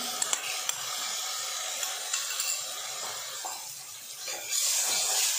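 Chopped vegetables sizzling in a hot stainless steel pan as dark soy sauce is spooned in, with a few light clinks and scrapes of the spoon and spatula. The sizzling grows louder near the end.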